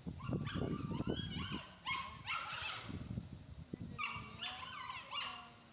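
Beagle whining and yipping in a string of short high-pitched calls, many falling in pitch, with a pause near the middle before another run of whines.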